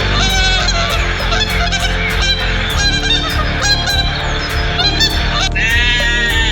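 Birds honking in quick, repeated calls over steady background music; near the end a longer, wavering call begins.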